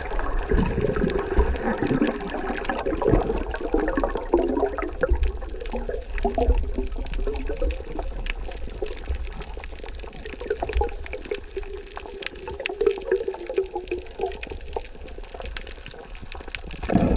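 Water bubbling and gurgling as heard from under water, with wavering, warbling gurgles and frequent low thumps of water against the microphone. It starts suddenly, as the microphone goes under.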